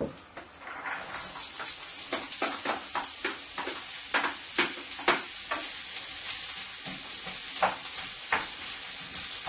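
Chopped onions starting to sizzle in a hot frying pan about a second in as they go in, set to sweat lightly, with repeated clicks and scrapes of a spatula stirring them against the pan.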